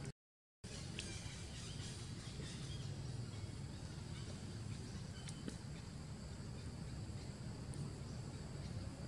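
Outdoor ambience: a steady low rumble with faint, steady insect trilling high above it and a few soft clicks. The sound drops out completely for about half a second right at the start.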